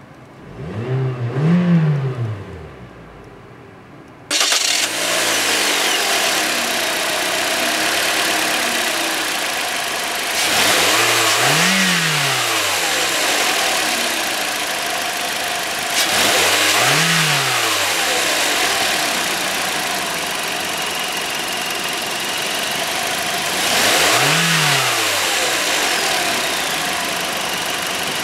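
2015 Toyota Corolla's four-cylinder petrol engine idling and blipped four times, each rev rising and falling in pitch over about two seconds. The first is heard muffled from inside the cabin; after a few seconds the sound turns louder and brighter with the hood open, and three more revs follow.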